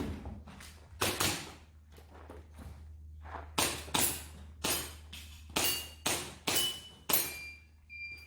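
Airsoft pistol firing about nine sharp shots in quick pairs and groups, the first two about a second in. A brief high ringing follows several of the later shots.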